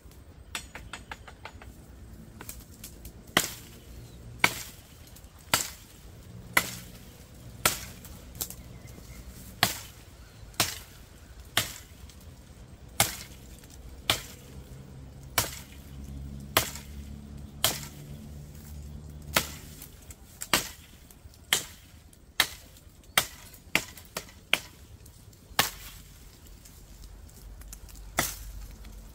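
A large L6 steel camp chopper knife chopping through vines and brush to clear a path: sharp strikes about once a second, two dozen or so in a row, starting about three seconds in.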